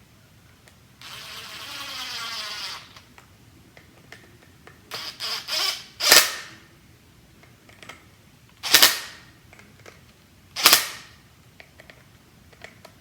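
A small battery screwdriver whirs for about two seconds, its pitch dropping as it drives a screw into the sander housing. A few quick rattles follow, then three sharp knocks about two seconds apart.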